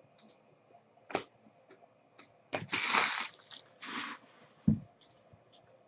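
Trading cards and packaging handled on a table: a few light clicks, a rustling scrape about halfway through, and a soft thump as something is set down near the end.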